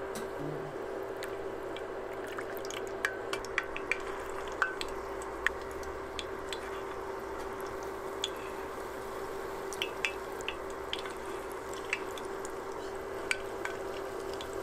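Battered rice croquettes deep-frying in hot oil: a steady sizzle with scattered sharp pops and crackles over a steady low hum.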